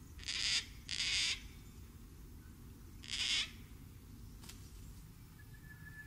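Gang-gang cockatoo giving three harsh, rasping calls: two close together, then one more about two seconds later.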